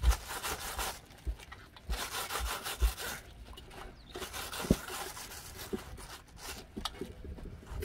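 A plastic bag rubbing and crinkling in repeated bursts as it is wiped and dabbed over a stack of thin tandoori flatbreads, spreading a yellow glaze, with a few soft knocks.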